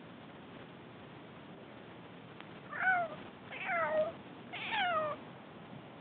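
Domestic cat meowing three times in quick succession, each meow falling in pitch.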